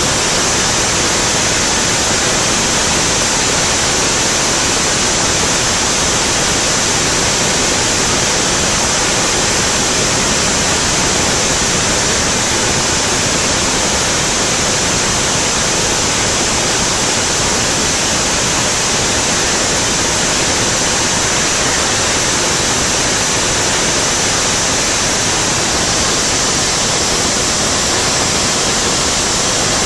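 Steady, loud cockpit noise of an F4U Corsair in flight: its Pratt & Whitney R-2800 radial engine and the rushing slipstream blend into one even hiss, with no separate engine beat heard.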